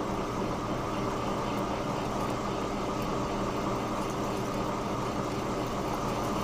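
Monarch lathe running steadily, its motor and gearing giving an even hum, while a radius tool takes a light hand-fed finishing cut across the groove of a heat-treated 4140 steel sheave to blend the radius.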